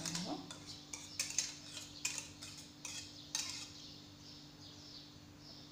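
Metal wire whisk clinking and scraping against a saucepan as thick pastry cream is scraped out into a tart shell: a scatter of sharp clinks over the first three and a half seconds, then quieter spreading.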